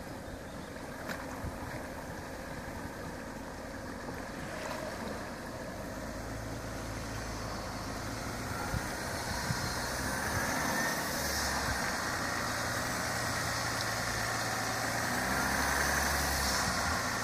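Range Rover Sport engine running at low revs as the SUV wades slowly through water, getting steadily louder as it comes closer, with water washing around the body and wheels.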